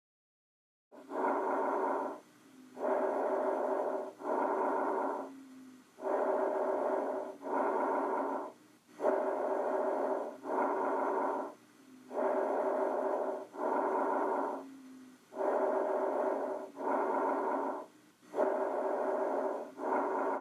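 Lung breath sounds heard through a stethoscope: a regular cycle of breathing in and out, with each breath a paired inhalation and exhalation about every three seconds. Both phases are loud and about a second long. The sound begins about a second in.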